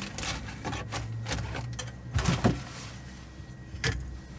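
Plastic model-kit parts being handled: light rustling and a few sharp plastic clicks and knocks, the loudest about two seconds in.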